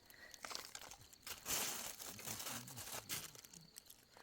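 Irregular crinkling and rustling in short bursts, the loudest about a second and a half in.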